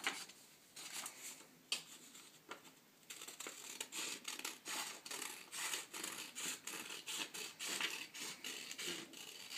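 Scissors snipping through a sheet of paper, a few scattered cuts and then a quick, steady run of snips from about three seconds in.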